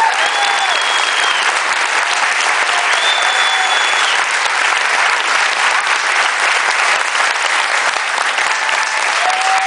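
Theatre audience applauding steadily. Two long, high whistles ring out over the clapping in the first four seconds, and a short cheer comes near the end.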